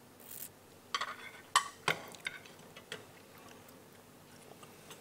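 A few light clicks and clinks of cutlery against a plate, bunched a second or two in, after a short hiss at the start.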